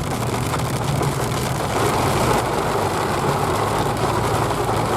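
Car cabin in a heavy storm: the engine runs steadily under a dense patter of rain on the roof and windscreen.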